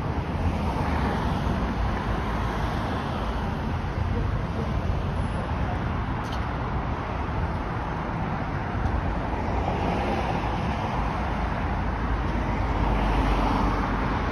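Steady road traffic on a multi-lane city street: cars and other vehicles driving past in a continuous stream of tyre and engine noise. The sound swells as vehicles pass close, and is loudest near the end as a car goes by.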